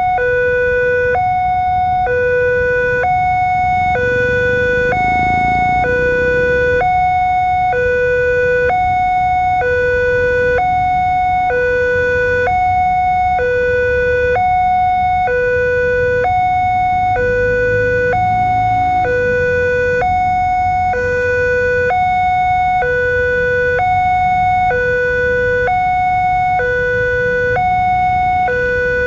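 Electronic railway level-crossing warning alarm sounding a continuous hi-lo two-tone, like an ambulance siren, each note lasting about a second. This is the warning that a train is approaching the crossing. Traffic engines idle and run underneath it.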